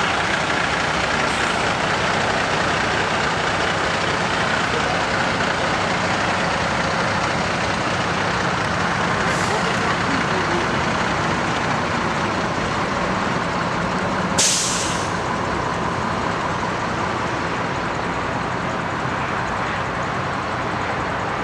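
Vintage transit bus's diesel engine running steadily as the bus moves slowly, with a short sharp air-brake hiss about two-thirds of the way in.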